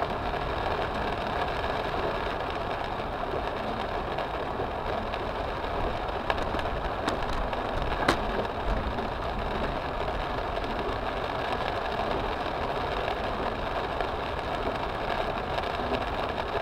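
Steady noise inside a car's cabin while it drives through heavy rain and floodwater: the engine running under a constant wash of water on the body and glass. A few short sharp ticks come around the middle, the loudest about eight seconds in.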